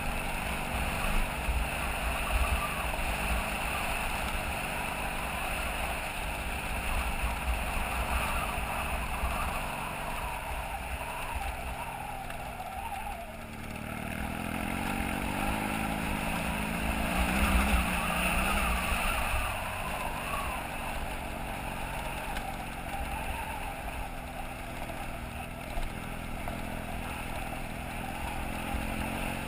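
BMW F800GS parallel-twin engine running under way on a dirt road, with low rumble from wind on the microphone. The engine eases off about twelve seconds in, then the revs climb again a few seconds later.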